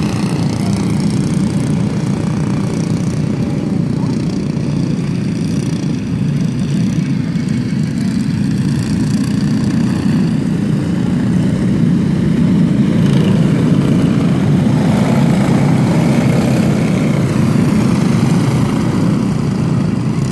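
Several racing kart engines buzzing as a pack circulates the track, growing somewhat louder in the second half as the karts come nearer.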